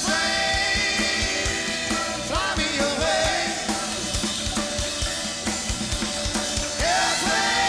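Live rock band playing: a drum kit keeps a steady beat with kick and snare under electric guitars and keyboards, with a few bending notes.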